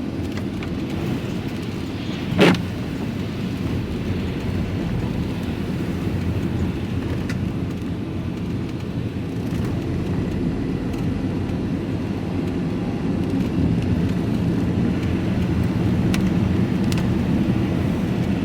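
Steady engine and tyre noise heard inside a moving vehicle's cab on a wet road, with a single sharp knock about two and a half seconds in; the noise grows a little louder in the second half.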